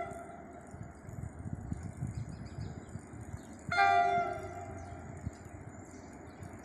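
EMD diesel locomotive's air horn sounding a chord of several tones in short blasts: a brief one ending just after the start, and a louder one lasting about a second, about four seconds in.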